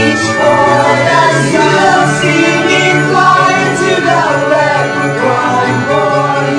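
Music: a song with several singing voices over instrumental backing.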